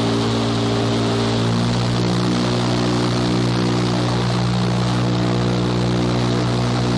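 Vertical indoor skydiving wind tunnel running: a steady rush of air from its fans, with several steady humming tones underneath that shift in pitch about one and a half to two seconds in.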